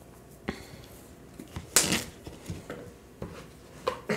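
Food-preparation clatter: a knife cutting zucchini on a cutting board and a spoon working seasoning into a plastic mixing bowl, making scattered light clicks and knocks, with one louder, brief scrape about two seconds in.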